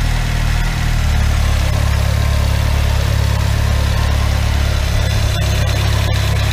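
Chevrolet Celta's four-cylinder engine idling steadily, its freshly rebuilt alternator charging at 14.5 volts with no bearing noise. The low engine note firms up about a second in.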